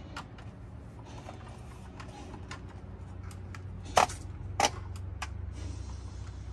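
Plastic clicks and snaps from a portable ring light stand being extended and adjusted by hand. Two louder snaps come about four seconds in, half a second apart.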